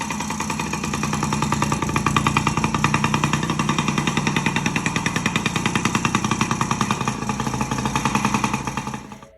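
Yamaha PW50's 49 cc single-cylinder two-stroke engine running fast and evenly, now that its worn crankshaft seal has been replaced. The revs rise a little in the first couple of seconds, hold steady, and the sound cuts off abruptly near the end.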